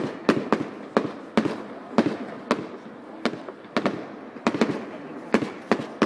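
Fireworks display: aerial shells bursting in quick succession, sharp bangs about three a second with a crackling hiss between them.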